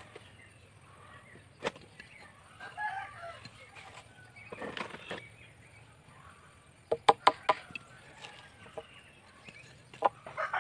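A hammer knocking a nail through a wooden plank into a log: a quick run of about five sharp strikes about seven seconds in, and another strike near the end. Chickens clucking in the background.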